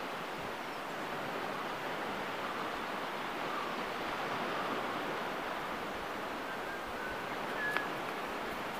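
Steady rush of surf and wind on an open beach, an even noise with no clear events. Near the end come a faint, brief high chirp and a single short click.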